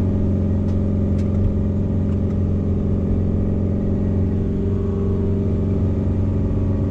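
A camper van's engine running steadily under load as it climbs a steep, winding hill road, heard from inside the cab.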